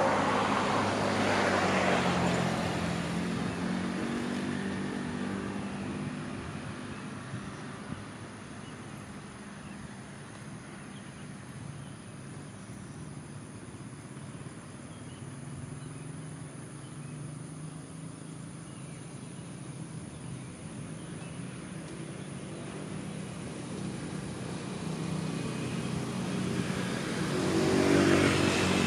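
Motor vehicles passing on a road: one passes loudly at the start and fades away, a quieter traffic hum follows, and another vehicle approaches and passes near the end.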